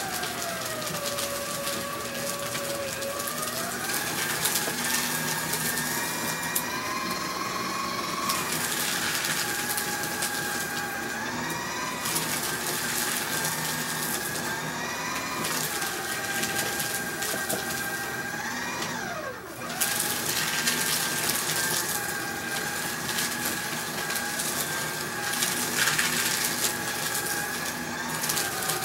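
Small electric paper shredder running as paper is fed through, its motor whine wavering up and down in pitch. About 19 seconds in, the whine falls away for a moment, then starts again.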